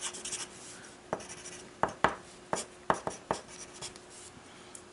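Wooden pencil writing on paper: scratching strokes, with a sharp tap each time the point comes down on the page, several times.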